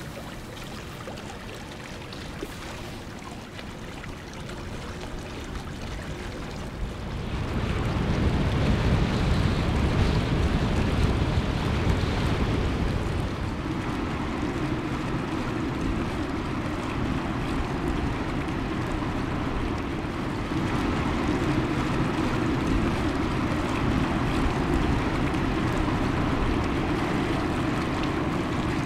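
Outdoor river ambience: wind on the microphone and small waves, with the low drone of a large Lürssen-built motor yacht passing close by. It grows louder about seven seconds in, and the low drone is plainer in the second half.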